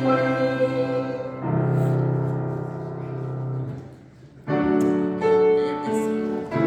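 Piano playing slow, held chords, with a short lull about four seconds in before the next chord sounds.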